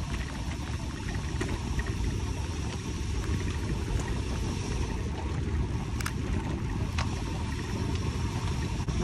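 Steady wind rumble on the microphone of a bicycle-mounted camera during a road bike descent, with road noise from the rolling bike and a few sharp clicks about four, six and seven seconds in.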